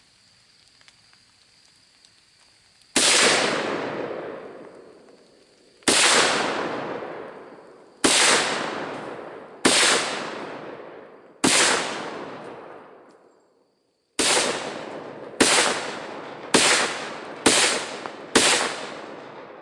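Ten rifle shots from a Norinco Chinese SKS firing 7.62×39 soft-point handloads, each crack followed by a long fading echo. The first five come about two seconds apart. The last five come faster, about one a second, emptying the rifle's ten-round magazine.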